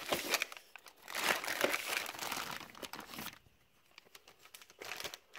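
Packaging crinkling and rustling as it is pulled open by hand, for about three seconds, then going quiet, with a few more rustles near the end.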